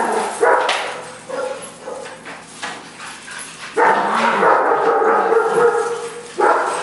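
Puppies yipping and barking as they play-fight, in short calls, then one drawn-out call lasting nearly two seconds starting about four seconds in.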